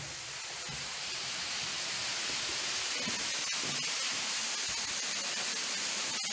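Waterfall rushing: a steady hiss of falling water that grows louder over the first two seconds, then holds.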